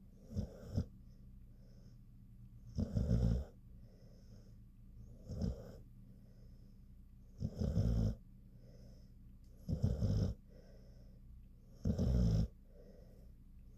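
A sleeping dog snoring, sounding much like a person snoring: a loud snore about every two seconds, with quieter breaths between.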